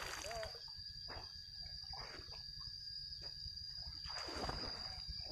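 Splashing in river water as a person moves through it: a splash trailing off right at the start and another about four seconds in. A steady high-pitched insect drone runs under it.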